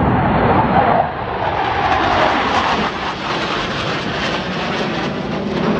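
Jet noise from US Navy Blue Angels F/A-18 Super Hornets flying overhead in formation: a loud, steady rush of engine noise, loudest in the first second, with a pitch that slides as the jets pass.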